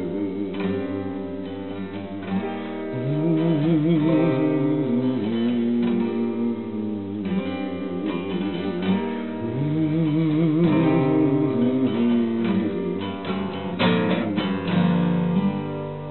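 Song outro: acoustic guitar strumming with a wavering, held melody line over it, starting to fade near the end.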